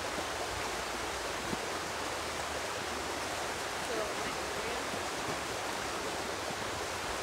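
Steady rushing of a creek's flowing water.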